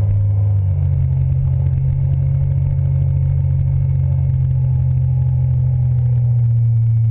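Yamaha outboard motor running at speed, a steady low drone whose pitch steps up slightly under a second in.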